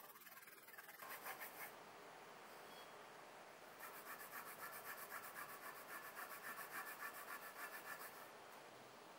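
Cloth rubbed back and forth along a steel kitchen knife blade, polishing it towards a mirror finish. Faint, rhythmic rubbing at about four strokes a second: a short run about a second in, then steady strokes from about four seconds in until near the end.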